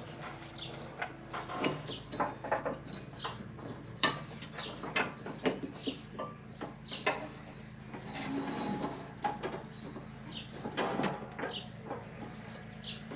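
Irregular clicks and knocks of hand work, over a steady low hum, with birds chirping now and then.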